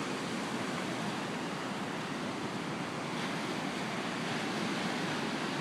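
Ocean surf washing onto a sandy beach: a steady, even rush of noise.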